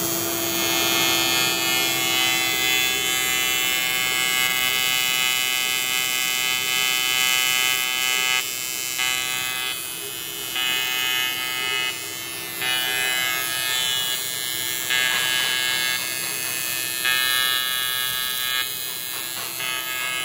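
TIG welding arc on pipe, a steady electric buzz with a dense stack of even tones. From about eight seconds in it steps quieter and louder again every second or so.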